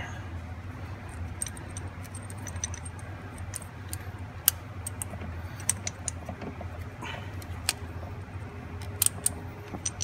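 Scattered metallic clicks and jingles of a seat belt's lower anchor hardware (plate, long bolt and washer) being worked apart by hand, over a low steady hum.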